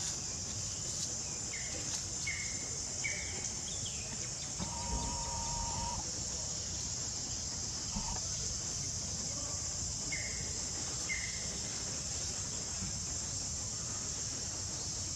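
Steady high-pitched drone of insects, with a few short chirping calls over it and one longer call about five seconds in.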